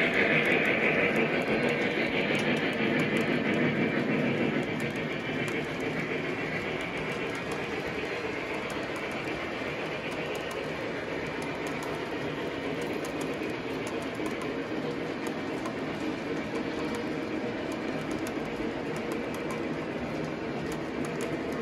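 Model train running along its track: a steady rumble with fast wheel clicking over the rail joints. It is louder for the first few seconds as it passes close, then goes on steadily.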